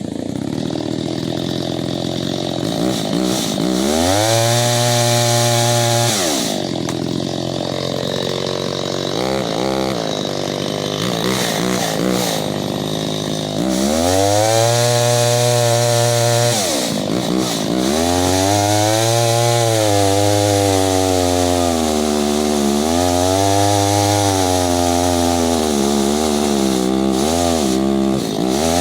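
Stihl 025 two-stroke chainsaw running and being revved. The pitch climbs to full throttle, holds for a couple of seconds and drops back, then does so again. Over the last ten seconds it is revved over and over, its pitch rising and falling.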